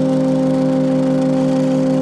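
Background music: one sustained chord held steady.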